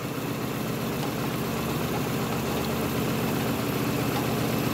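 Classic Lada four-cylinder engine idling steadily with an even, rapid pulse, running with its oil drained and the sump drain plug out.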